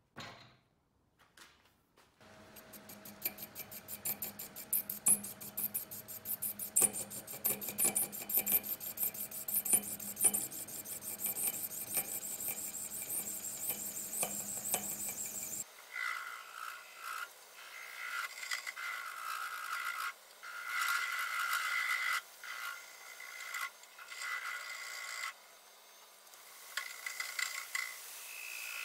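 Omega Stubby wood lathe running while a turning tool cuts the spinning resin-and-willow bowl: a continuous rapid scraping of the tool on resin over the machine's steady tones. About halfway through the sound changes abruptly to a higher, more broken scraping that comes and goes.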